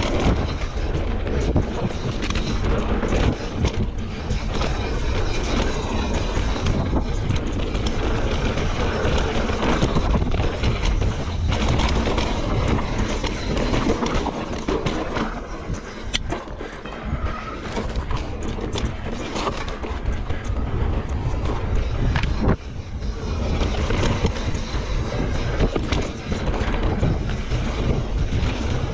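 Santa Cruz Megatower mountain bike ridden over a dirt trail: steady rumble of the tyres on dirt and wind on the microphone, with frequent clatters and clicks from the chain and frame over bumps.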